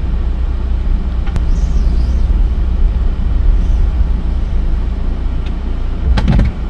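Van cabin at highway speed: a steady low rumble of engine and road noise. A brief, sharper sound comes in a little past six seconds.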